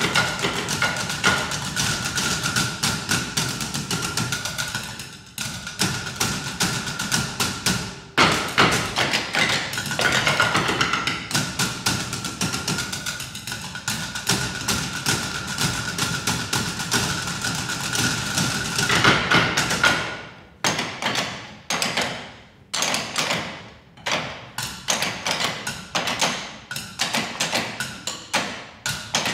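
A percussion ensemble drumming on wooden bar stools, a fast, dense rhythm of wooden knocks and thuds. About two-thirds of the way through it thins out to spaced single hits with short gaps between them.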